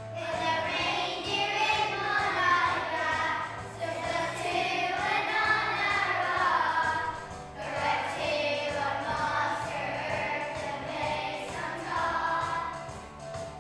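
A children's choir singing a song over a backing track with a steady bass line, in phrases broken by short pauses about every four seconds.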